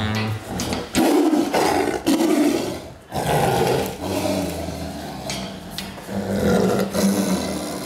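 Tigress snarling and growling at close range in several loud bursts, with a short break about three seconds in: a defensive, agitated response to being darted with a vaccine.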